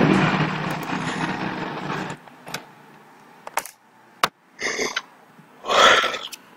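A steady hiss with a low hum that cuts off about two seconds in. After it come two sharp clicks and two short breathy noises.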